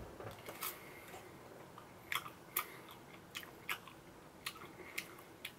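Close-up mouth sounds of eating a spoonful of ice cream cake: soft wet smacks and clicks, about eight of them scattered over a few seconds.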